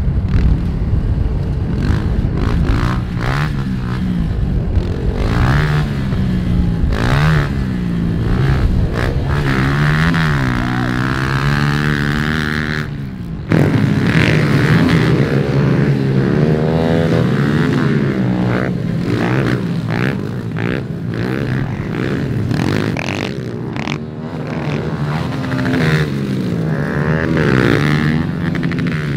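Pit bike engine revving hard and dropping back again and again, shifting through the gears while being ridden around a dirt track. The sound changes abruptly about halfway through.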